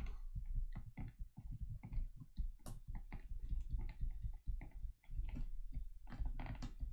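Faint, irregular tapping and clicking of a stylus writing on a tablet screen, several ticks a second, over a low steady hum.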